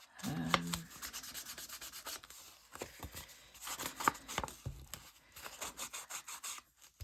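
Paper rubbing and rustling as sheets are handled and pressed down, irregular scratchy strokes with a few light taps.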